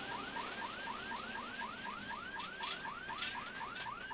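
Electronic siren on the rally car yelping: quick rising sweeps repeated about six times a second, over the hiss of the moving car.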